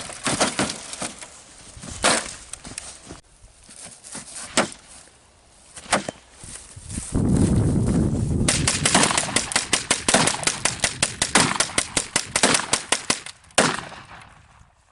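Close-range gunshots: single shots a couple of seconds apart, then a fast string of shots lasting about five seconds, and one last shot.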